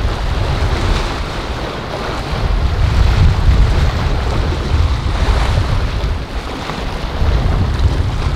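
Wind buffeting the microphone in a heavy low rumble over the wash of rough surf, with the engines and spray of cabin cruisers running fast through the chop.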